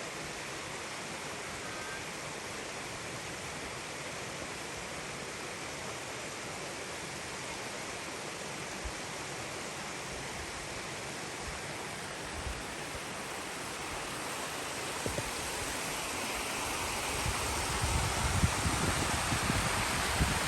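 Waterfall rushing steadily, growing louder over the last several seconds, with low irregular rumbles near the end.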